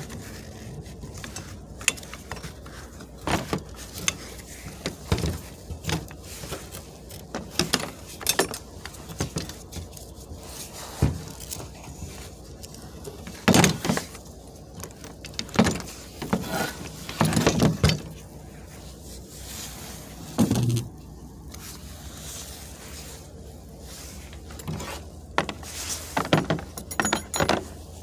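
Scattered metallic clinks, taps and knocks, some in short clusters, as a steel wiper motor and linkage assembly and hand tools are handled on a car's sheet-metal hood.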